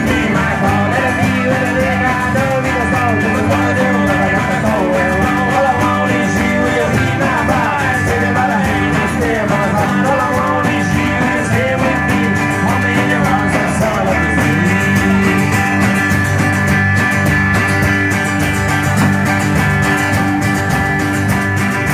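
Live rock band playing: guitars with a man singing into a microphone, the music running steadily.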